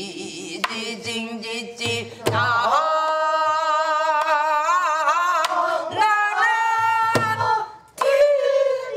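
Women singing a Korean folk melody in long held notes with a wavering pitch, the phrase breaking off and starting again a few times. A drum beats the rhythm underneath with a few low strokes.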